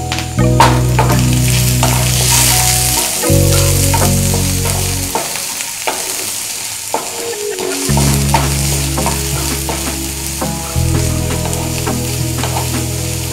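Chopped onion sizzling in hot oil in a kadai, stirred with a spatula that clicks and scrapes against the pan. Under it runs a steady low tone that shifts in pitch every few seconds.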